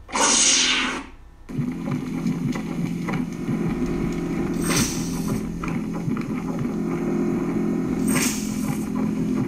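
Sound effects: a loud noisy burst lasting about a second, then a steady low electronic hum with two short hissing swells, one about five seconds in and one near the end.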